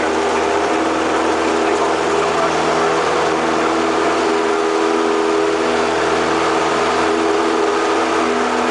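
Single-engine light aircraft's piston engine and propeller running at steady high power during the takeoff roll, heard from inside the cockpit as a constant loud drone.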